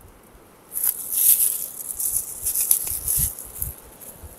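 Clear disposable plastic gloves crinkling as the hands pick up and handle sauce bottles, in a few short crackly bursts, with a soft knock about three seconds in.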